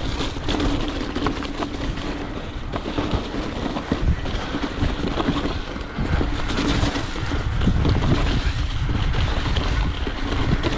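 Mountain bike running down a rough dirt trail: tyres on dirt and rock, the bike rattling with many small knocks, and wind rushing over the microphone. A steady hum sounds through the first three seconds.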